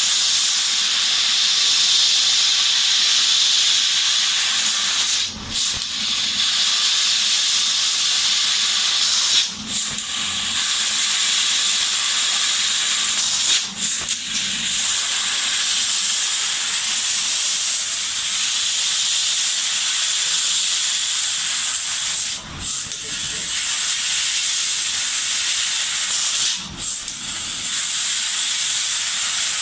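Laser cutting machine running, its assist-gas jet giving a loud, steady hiss that breaks off briefly about six times, every four to nine seconds.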